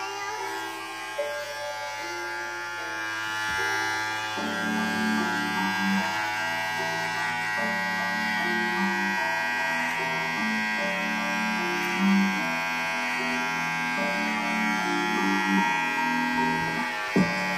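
Electric T-blade hair trimmer buzzing steadily as it cuts short hair at the back of the head, with music playing underneath.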